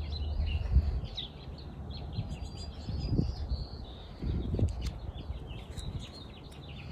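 Small birds chirping on and off in the background, with two soft rustles about three and four and a half seconds in as tarot cards are slid across one another.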